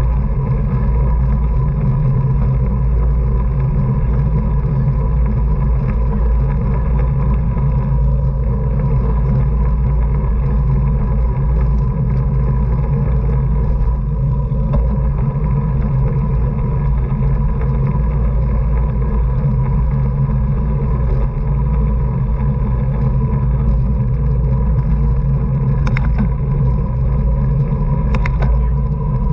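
Wind rushing over the microphone of a camera riding on a racing bicycle: a loud, steady low rumble. Two short clicks come near the end.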